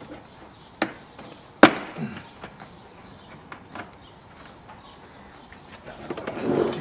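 Car interior plastic trim being pried out: two sharp snaps about a second apart, the second the loudest, as its clips let go, a few light clicks, then rustling and scraping near the end.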